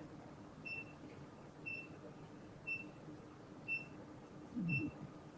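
Faint, short, high electronic beeps from medical equipment, evenly spaced at one each second. A brief low vocal sound comes a little before the end.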